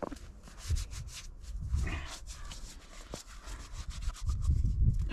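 Hands scooping and rubbing snow together, a rough, crackly rubbing made of many small strokes.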